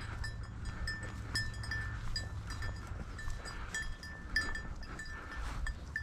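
A hunting dog's collar bell jingling in short, irregular metallic rings about three times a second as the dog works through the grass, over a low rumble.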